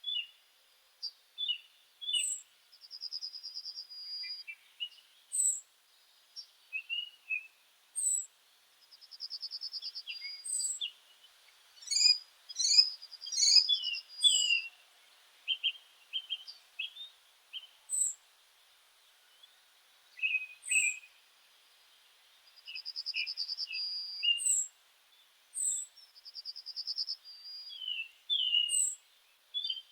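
Several birds singing and calling together. A short, very high note repeats every few seconds, buzzy trills last about a second and a half each, and many quick chirps run between them. The calls come thickest about halfway through.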